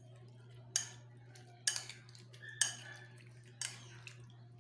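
A metal spoon clinking against the side of a bowl while tossing a wet raw-fish salad: four sharp clinks about a second apart, over a steady low hum.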